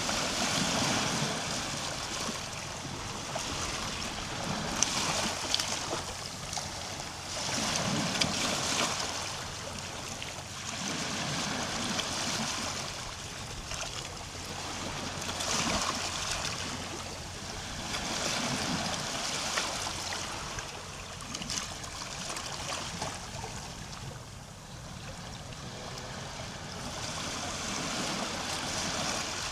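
Gentle Baltic Sea waves lapping on the shore, the wash swelling and falling back every three to four seconds, with light crackling as the water runs in.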